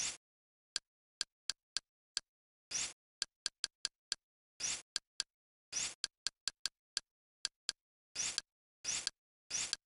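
Kodi skin menu sound effects: a long run of short, sharp clicks as the cursor steps item by item through a settings list, sometimes three or four in quick succession. Among them are about seven slightly longer blips of roughly a quarter second, the kind given when a list item is selected or toggled.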